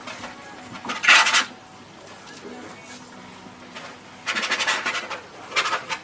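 Scratchy strokes of a painting tool working oil paint across canvas: a short stroke about a second in, then two longer ones near the end.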